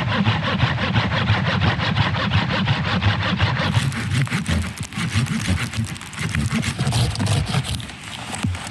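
Hand saw cutting through wood in quick, steady back-and-forth strokes, a little lighter after about three and a half seconds.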